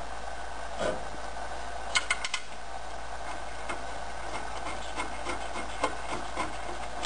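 Bolts being threaded by hand into the ShoeBox compressor's housing: small metal clicks and rubbing. There is a quick cluster of clicks about two seconds in, then light irregular ticks, over a faint steady hum.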